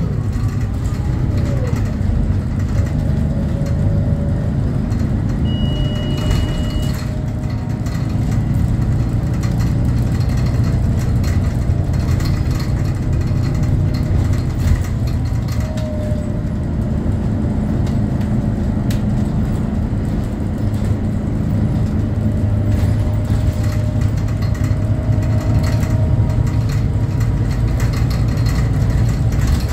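Interior of a Scania K94UB city bus on the move: its diesel engine and ZF automatic gearbox running under way with a steady low rumble, a faint wavering whine, and light rattles from the body. A brief high beep sounds about six seconds in.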